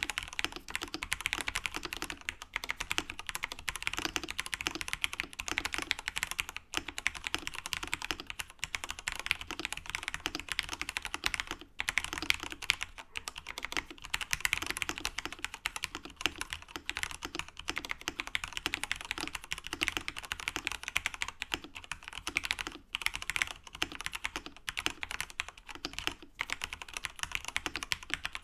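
mStone Groove T SF mechanical keyboard being typed on, with factory-lubed Cherry MX Red linear switches, lubed stabilizers and case and plate foam: fast, continuous keystrokes with a few brief pauses.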